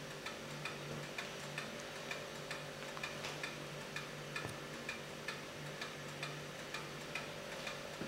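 Quiet, steady ticking, about two light ticks a second, over a faint steady hum.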